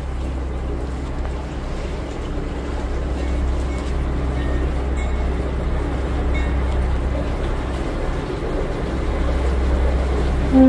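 A tour boat under way: its engine runs steadily as a low rumble under a hiss of water. A short blast of the boat's horn sounds right at the end.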